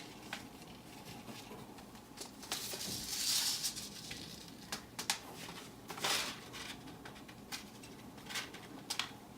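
Paper seed packets rustling as they are handled and set in place, with light taps and clicks as they are put down.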